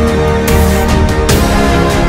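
Background music: sustained chords over a beat of drum hits.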